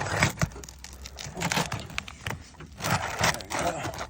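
Metal roof snake (shingle removal bar) working up under asphalt shingles, with irregular scraping and crunching and sharp clicks as it pries at the sealed strip and nails.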